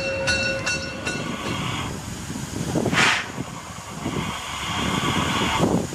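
Steam locomotive 50 3552-2, a German class 50 2-10-0, passing close by with rhythmic clicking about two to three times a second and a steady ringing squeal, both fading out in the first second or two. Then steam hisses from the locomotive, with a short sharp burst about three seconds in and a steadier hiss near the end.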